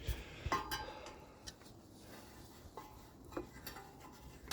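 Faint, scattered metallic clinks and knocks from working the serpentine belt around the engine's pulleys, one about half a second in ringing briefly.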